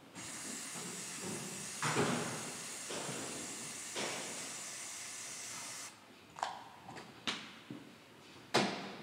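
Compressed-air blow gun hissing in one long, steady blast that cuts off suddenly about six seconds in, followed by a few sharp clicks and knocks of metal.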